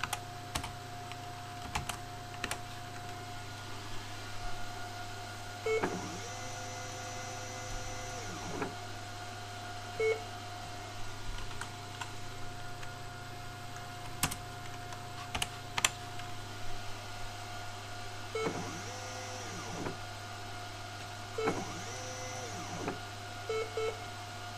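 Stepper motors of a homemade CNC machine making G0 rapid moves, running smoothly without skipping steps now that they get a clean step waveform. Each move is a whine that rises in pitch, holds steady, then falls as the motor slows. There are four moves, the longest about six seconds in and three near the end, over a steady electrical hum with a few sharp clicks.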